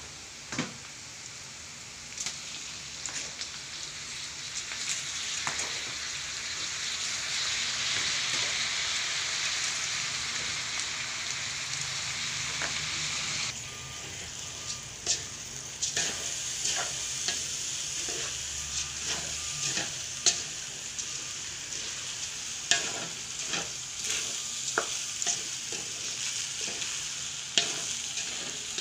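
Shredded chicken sizzling in oil in a metal pan, stirred with a wooden spatula. About halfway through, the sizzle drops suddenly as uncooked rice is tipped in. After that, the spatula scrapes and knocks against the pan as the rice is stirred through.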